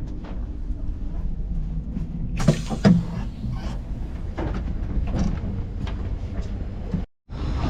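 Low steady rumble inside an Al Boraq high-speed train carriage, with scattered knocks and clatters, the loudest about two and a half to three seconds in. The sound cuts off abruptly near the end.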